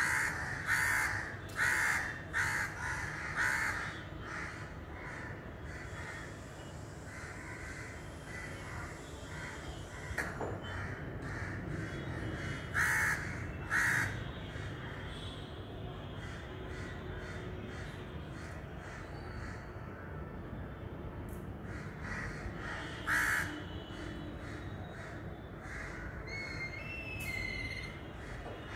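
Crows cawing over and over in runs of harsh caws, loudest in a series near the start and again about halfway through. A few short, thin chirps from another bird come in near the end.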